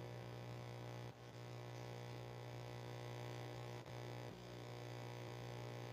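Steady low electrical hum with no other sound, dipping briefly about a second in and again near four seconds.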